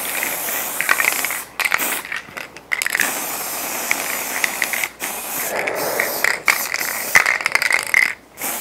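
Aerosol spray can of grey undercoat hissing in several spray passes, cut by short pauses between them.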